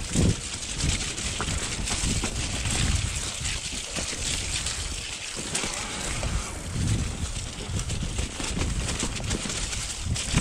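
Mountain bike being ridden over rough, wet ground: an uneven tyre rumble with frequent knocks and rattles from the bike, and wind buffeting the microphone.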